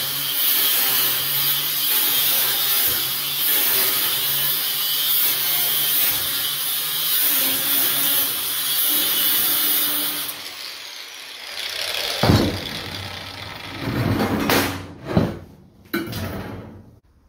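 Angle grinder cutting through steel mesh sheet with a steady, loud grinding noise over its motor hum. It is switched off about ten seconds in and winds down. Then come a few sharp clanks and rattles of the metal mesh sheet being handled on the bench.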